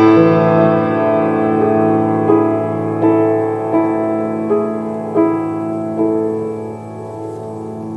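Piano playing the closing bars of a song: single notes struck about every three-quarters of a second over a held low chord, slowly fading out.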